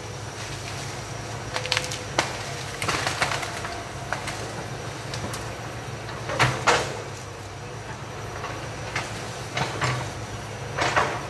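Hitachi EX200 excavator's diesel engine running steadily at a distance, with irregular sharp cracks and knocks as it works into standing forest trees; the loudest come a little past the middle and near the end.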